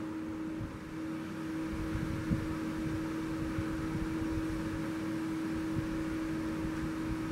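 Desktop computer running: a steady fan hum with one steady mid-pitched tone and a low rumble under it.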